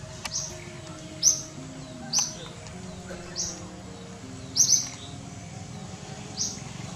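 A bird repeating a short, high chirp that drops slightly in pitch, about once a second, with a quick double chirp near the middle.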